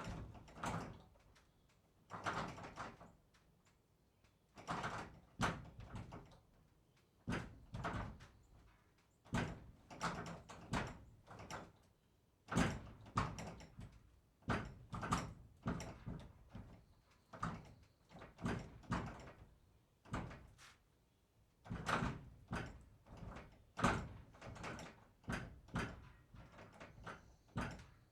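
Barn door being worked over and over: clusters of sharp knocks, rattles and short scraping slides, in groups with brief pauses between them.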